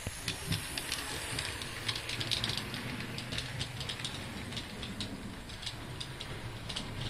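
Model train running past on sectional track: a quick, irregular run of wheel clicks over the rail joints, loudest a couple of seconds in, over a steady hiss and a low hum.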